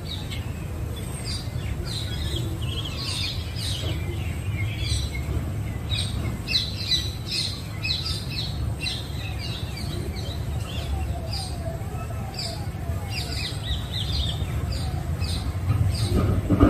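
Birds chirping and squawking in many short, repeated calls, over a steady low rumble.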